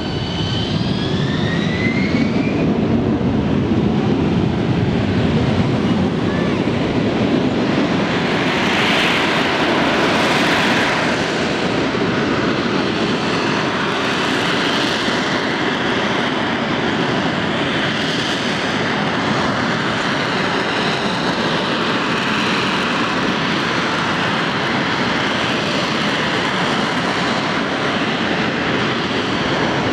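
AV-8B Harrier II's Rolls-Royce Pegasus turbofan running loud. A whine climbs in pitch over the first two seconds or so, then gives way to a steady, heavy jet rush that swells briefly near the middle.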